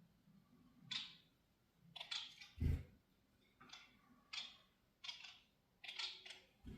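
Pet society finches (Bengalese finches) giving short, repeated chirping calls about once a second, with a dull thump a little under three seconds in.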